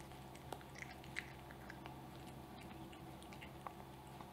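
A cat chewing and licking up soft scrambled egg: faint wet chewing with scattered little clicks of tongue and teeth.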